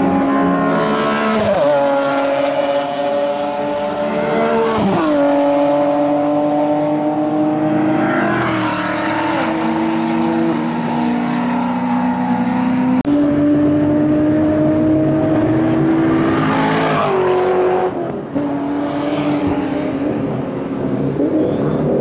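Time attack race cars' engines running hard on a circuit, several cars passing one after another, with high revs that drop sharply in pitch a few times and a sudden change about halfway through.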